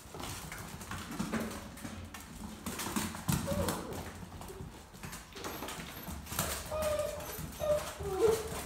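Dogo Argentino puppies' claws clicking and paws tapping on a hard plank floor as several of them walk and scamper about.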